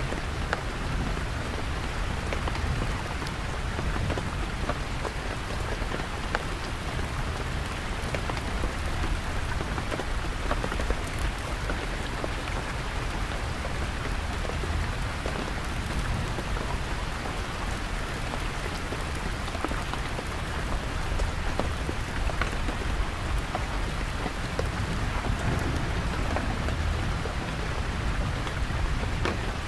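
Heavy rain falling steadily on a canvas tent, a dense hiss with separate drop taps, over a low, steady rumble of distant thunder.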